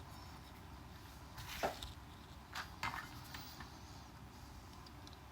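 A few faint knocks and clicks from the metal parts of an RC car repair stand being handled during assembly, spaced over a couple of seconds, over quiet room tone.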